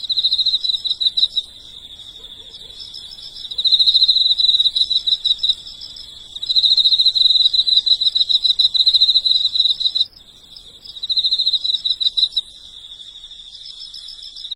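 An insect's high, fast-pulsed trill, swelling into four louder bouts of one to two seconds each with a softer trill carrying on between them.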